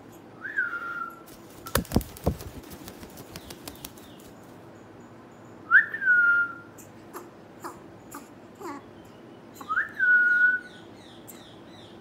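A five-month-old African grey parrot chick, just starting to whistle, gives three short whistles, each a quick jump up in pitch that settles on a steady slightly lower tone. A few knocks come about two seconds in, and faint short chirps and clicks fall between the whistles.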